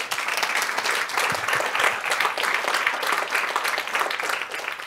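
Audience applauding, many people clapping steadily, fading out near the end.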